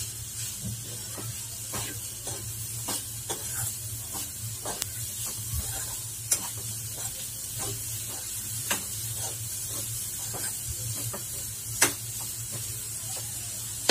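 A steel spoon stirs and scrapes grated coconut and melting jaggery in a steel pan, with irregular clinks of the spoon against the pan and one sharper clink near the end. Under the clinks is a steady faint sizzle as the jaggery melts into the coconut, stirred constantly so it doesn't stick to the bottom.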